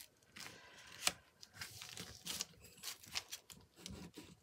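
Tissue paper rustling and crinkling under hands while a pencil traces around a small cardboard candy box on it, with a few short taps and clicks, the sharpest about a second in.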